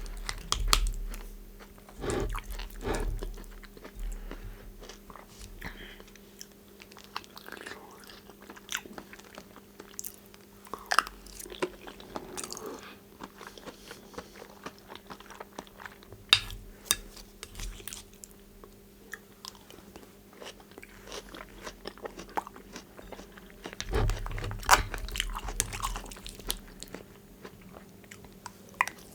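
Close-miked eating sounds: bites and chewing with scattered sharp smacks and clicks, in louder clusters every several seconds, over a faint steady hum.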